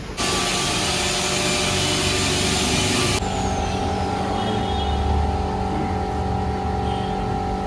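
Loud spraying hiss from bike-washing equipment for about three seconds, cutting off abruptly to a steady mechanical hum with several held tones.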